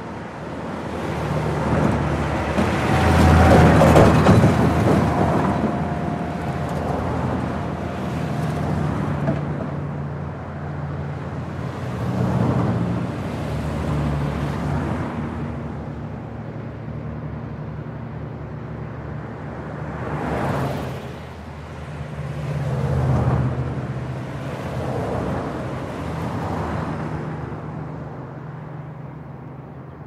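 Fast traffic on a trunk road: vehicles passing one after another, each swelling and fading with tyre noise over a steady low engine drone. The loudest pass comes about four seconds in.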